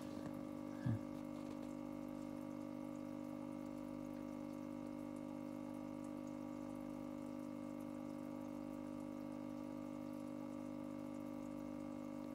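Aquarium sponge filter bubbling, air bubbles trickling and splashing at the water surface over a steady hum of its air supply. A brief low thump about a second in.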